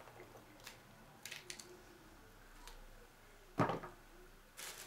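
Quiet hand-prepping of a cauliflower: a few faint clicks and snaps as florets are broken off and handled, with one sharper snap about three and a half seconds in.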